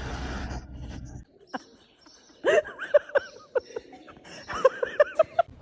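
A dog whining in two quick runs of short cries that rise and fall in pitch, the first run starting about halfway through.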